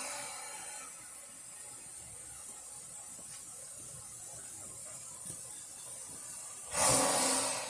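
Steam locomotive letting off steam: a hiss fades out in the first second, then after a stretch of low background a fresh burst of steam hiss about a second long starts near the end.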